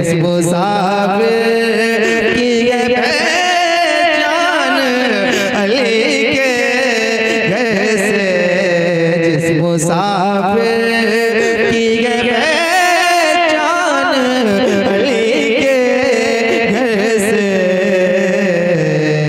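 A man singing a manqabat (a devotional Urdu song praising Ali) in long, drawn-out phrases with wavering ornaments, over a steady held drone.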